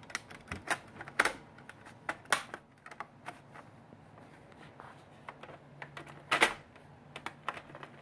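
Irregular sharp plastic clicks and taps as the bottom access cover of an HP Pavilion G4 laptop is pressed and snapped into place, with louder snaps about a second in, two seconds in and after six seconds.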